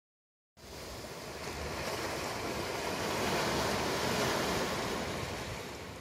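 Small sea waves breaking and washing up onto a fine-pebble beach, in an even rushing wash. It starts about half a second in, swells to its loudest around the middle and eases a little toward the end.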